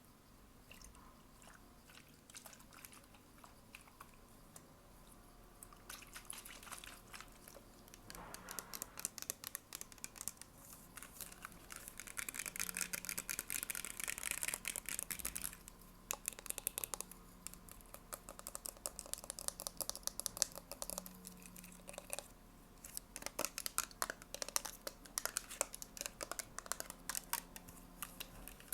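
Close-miked ASMR mouth sounds: wet clicking and smacking. It is sparse at first, then comes in dense runs of rapid clicks with short pauses from about six seconds in.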